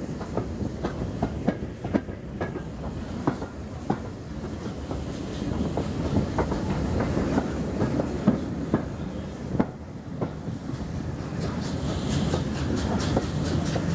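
Passenger train coaches rolling slowly on jointed track: the wheels click over the rail joints at irregular intervals over a steady rumble, which grows louder near the end as the train gathers speed. Heard from an open carriage window.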